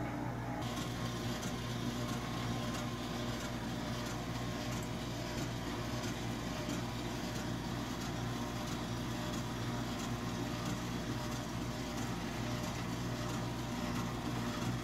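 Emergency-vehicle light bar switched on and running: a steady electrical hum, with a hiss and regular sharp ticks starting just under a second in, about one and a half ticks a second.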